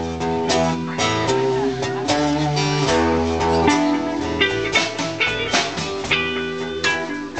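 Live band playing: electric and acoustic guitars over a drum kit keeping a steady beat.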